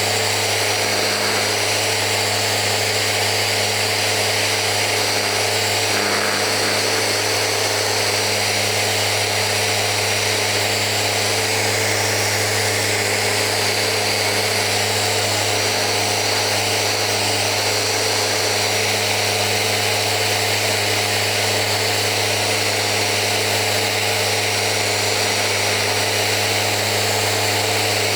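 Festool RO 90 DX sander running steadily at about half speed, sanding the edge of a cocobolo board with a used 220-grit abrasive.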